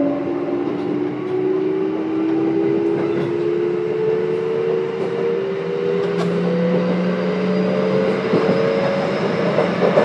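Onboard running sound of a Kintetsu 1031 series electric train with a Hitachi GTO-VVVF inverter: the traction motor whine rises steadily in pitch as the train accelerates, over wheel and rail noise.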